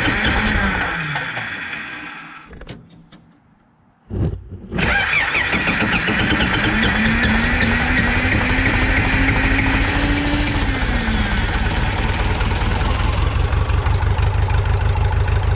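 Case 188 four-cylinder diesel engine of a 1968 Case 580CK being started. It runs briefly and dies away with falling pitch in the first couple of seconds. Started again about four seconds in, it catches, picks up speed, then settles to a steady idle with even firing pulses.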